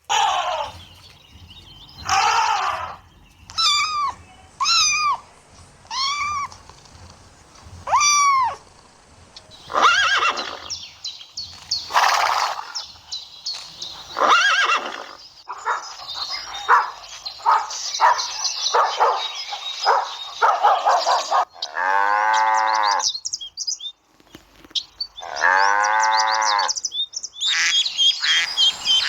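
A series of different animal calls one after another: four short arched calls, a stretch of rapid chirping, two long calls that rise and fall in pitch, then birds chirping near the end.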